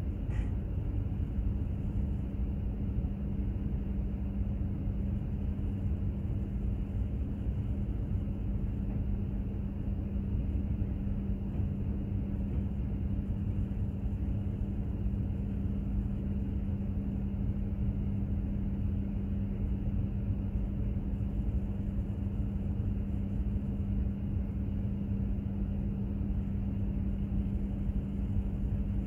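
Steady low rumble of a container ship under way, its engine and machinery droning, with a constant low hum over the rumble.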